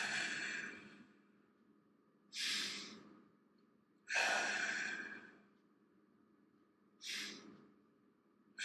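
A man taking slow, deep breaths through the mouth, five audible breaths in and out about every two seconds, while holding a thoracic rotation stretch.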